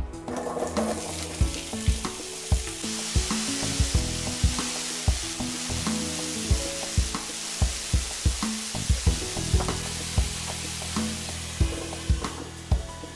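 Cubed raw potatoes sizzling in hot oil in a frying pan, the hiss building about a second in as they hit the pan and dying down near the end, with background music playing over it.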